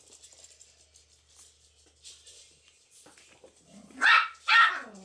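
Two puppies play-fighting, with faint scuffling for the first few seconds. About four seconds in come two sharp, high-pitched puppy yaps in quick succession, each falling in pitch at the end: playful barking while they wrestle and chew on each other.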